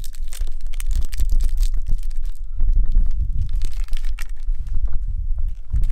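Plastic snack wrapper crinkling and tearing open, then crunchy bites and chewing from about two and a half seconds in, over a steady low rumble.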